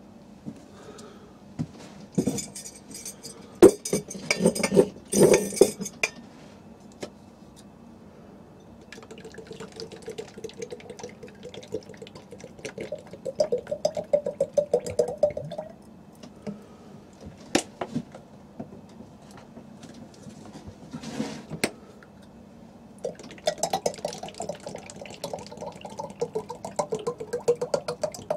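Cooking oil glugging out of a plastic bottle into a glass jar in two long pours, the pitch of the first pour rising as the jar fills. Before it, about two to six seconds in, come loud crackles and knocks from handling the plastic bottle.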